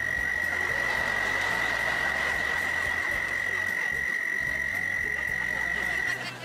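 A toad calling with its throat sac fully inflated: one long, steady, high-pitched call that holds for about six seconds and stops near the end.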